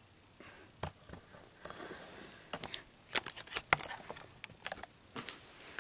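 Camera handling noise: scattered light clicks, taps and rustles as the camera is picked up and moved about, most of them in the middle.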